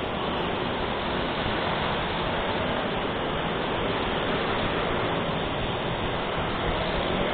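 Steady rushing wind and road noise from riding a motor scooter through traffic.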